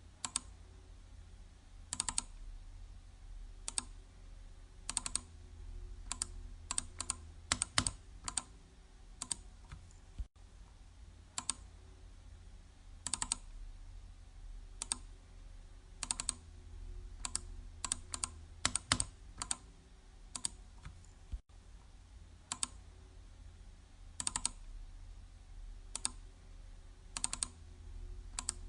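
Computer mouse button clicking: sharp single clicks every second or two, some coming in quick pairs or small clusters, over a faint low hum.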